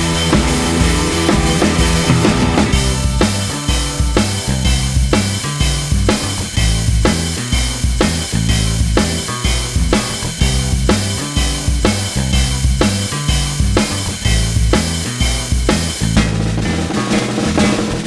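Background music with a steady drum beat and a pulsing bass line.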